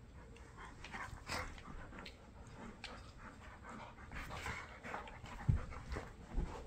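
A Bernese mountain dog and an Aussie poodle play-wrestling: irregular short dog noises and scuffling, getting busier toward the end, with a dull thump about five and a half seconds in.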